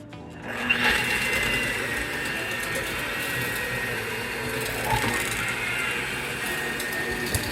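Electric mixer running steadily, its motor whining, as it creams butter and sugar in a bowl. It starts about half a second in.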